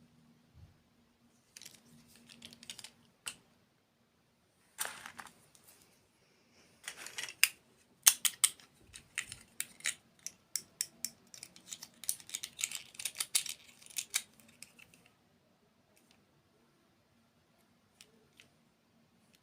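Close-miked crisp crunching and crackling in several irregular bursts, the busiest run lasting about eight seconds in the middle: crunchy dessert being bitten and chewed.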